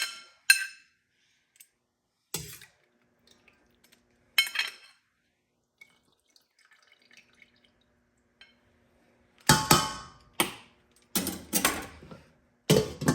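Kitchen dishes and utensils clinking as food is served onto a plate. A few sharp clinks come in the first seconds, then a quiet stretch, then a run of louder clanks and clatter near the end.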